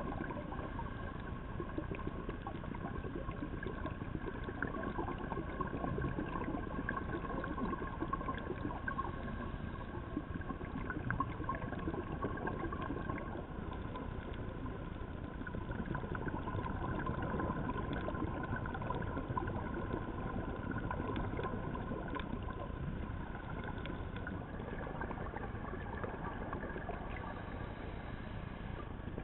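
Underwater reef ambience picked up by a diving camera: a steady hum with two faint held tones and a constant fine crackle of tiny clicks.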